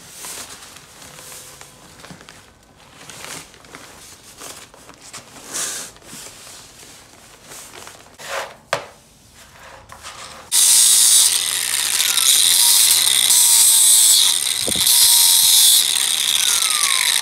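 Play sand pouring from a bag into a plastic bucket, a soft hiss. About ten seconds in, a loud, steady mechanical noise starts suddenly and drowns it out.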